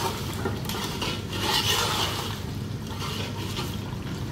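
Metal ladle stirring and scraping through mutton karahi in an aluminium pot as the meat is fried down with yogurt: a few wet scraping strokes in the first two seconds, then softer stirring, over a steady low hum.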